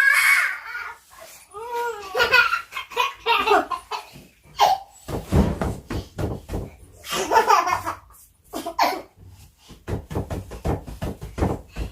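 Toddlers laughing and giggling in repeated short bursts.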